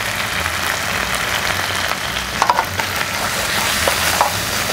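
Canned fish, chili and garlic sizzling in oil in a non-stick wok. From about two and a half seconds in, a wooden spatula stirring them scrapes and taps against the pan in short irregular clicks.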